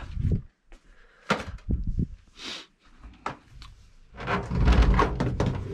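Household objects being moved and set down: several short knocks and clunks, then a longer, louder scraping rumble from about four seconds in.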